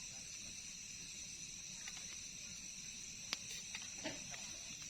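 Night insects, crickets most of all, trilling in a steady high-pitched chorus, with a few short clicks in the second half.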